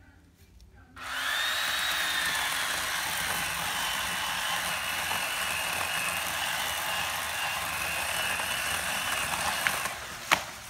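Poulan electric chainsaw starting about a second in and cutting through a dead oak trunk: a steady motor whine that dips slightly in pitch as the chain bites. It stops near the end, followed by one sharp crack as the cut tree gives way.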